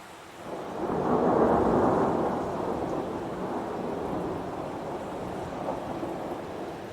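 Heavy rain falling steadily, with a roll of thunder over it that swells about half a second in, peaks a second or so later and fades slowly over the next few seconds.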